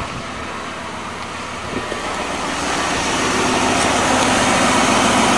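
1997 Lincoln Continental's 32-valve V8 idling steadily, growing louder as the microphone nears the engine bay; it runs smoothly now that a spark plug wire that was arcing through has been taped, curing the single-cylinder misfire.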